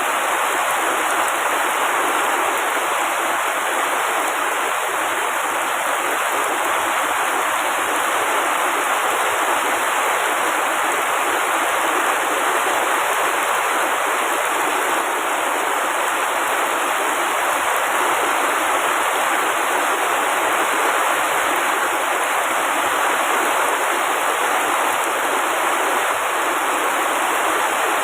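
Heavy rain falling steadily on tree foliage: an even, unbroken hiss with no thunder.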